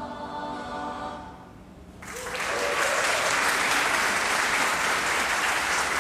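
A mixed choir holds the closing chord of a song, fading out about a second and a half in. About two seconds in, the audience breaks into loud, steady applause.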